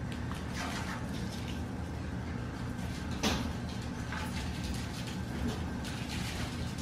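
Saluki puppies' paws scampering and scuffing on a vinyl floor, with scattered light taps and one sharper knock about three seconds in, over a steady low hum.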